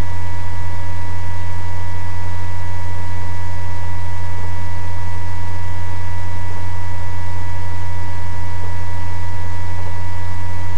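Steady low electrical hum with an even hiss, unchanging throughout: background noise of the recording setup, with no other sound.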